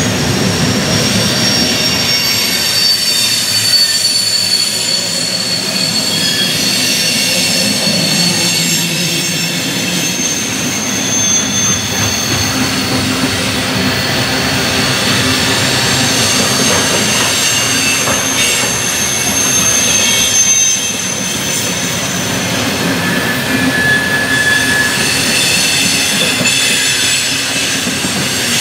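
CSX coal train's hopper cars rolling past, a steady rumble of steel wheels on rail with high, thin wheel squeals that come and go.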